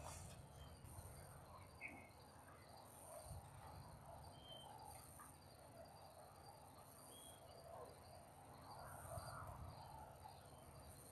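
Faint insect chirping in a steady, regularly pulsing high trill, with a few short, high chirps now and then.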